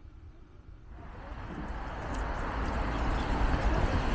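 Street traffic noise, growing steadily louder from about a second in, over a steady low rumble.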